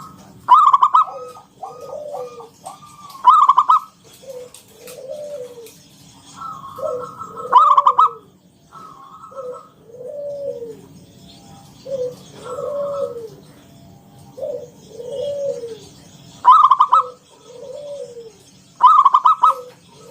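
Zebra dove (perkutut) singing: a steady run of soft arched coos, broken about five times by much louder rapid rolling trills.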